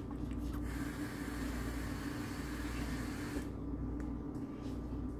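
Steady mechanical hum with one constant low tone. A hiss rises over it about half a second in and cuts off about three and a half seconds in.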